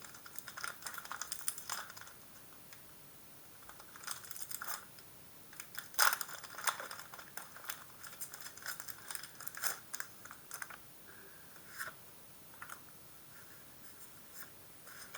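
Pokémon trading cards and their packaging being handled: scattered light clicks, taps and crinkly rustles, with a sharper click about six seconds in.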